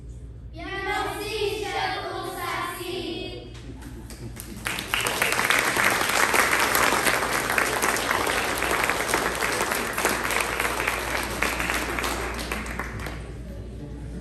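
Voices sing for about three seconds, then an audience applauds for about eight seconds, the clapping dying away near the end.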